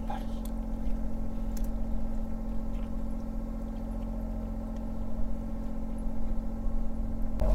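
Steady drone of a fishing boat's motor idling, with a couple of faint ticks in the first two seconds.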